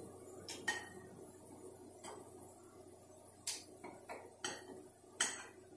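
Light metal clicks and clinks of steel snap ring pliers and a snap ring against the steel direct clutch drum in its spring compressor, as the snap ring is worked into place. About seven short, sharp clicks come spread unevenly through the quiet.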